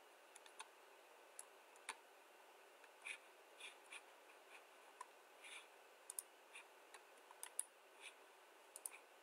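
Faint, irregular clicking of a computer mouse and keyboard, some clicks in quick pairs, over low room hiss.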